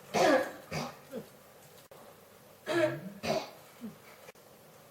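A person coughing in short fits: two hard coughs in quick succession, then a fainter catch of breath. The fit comes twice, about two and a half seconds apart.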